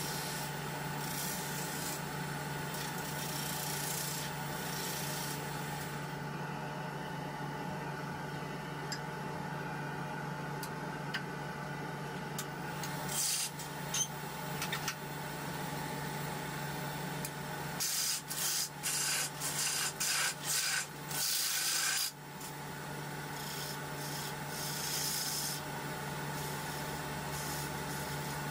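Wood lathe motor running with a steady hum while a turning tool cuts a spinning zelkova bowl blank, the cut hissing and scraping on and off. About two-thirds of the way through comes a run of short, sharp scraping bursts as the tool bites.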